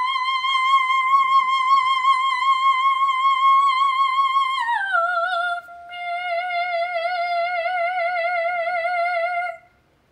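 Solo soprano singing a cappella in full operatic voice, holding the song's closing high notes with vibrato. She sustains a high note for about four and a half seconds, then glides down to a lower note and holds it until she stops about half a second before the end.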